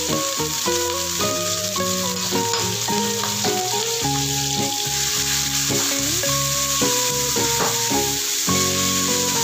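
Beech mushrooms sizzling in hot oil in a frying pan, stirred with a spatula near the end, over background music with a melody of held notes.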